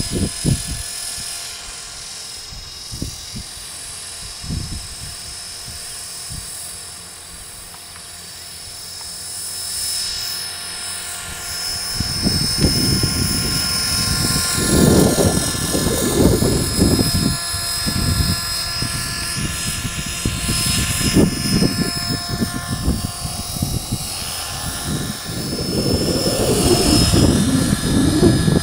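Radio-controlled model helicopter in flight: a steady high whine from its motor and rotor, gliding slowly in pitch as it passes back and forth. Irregular low rushing comes and goes through the second half.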